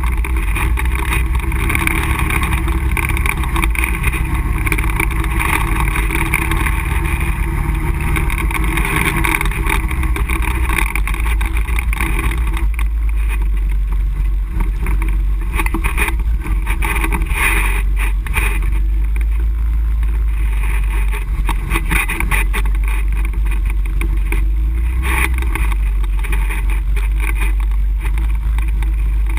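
ATV engine running steadily while riding along a dirt trail, heard on board the machine, with no sharp revving.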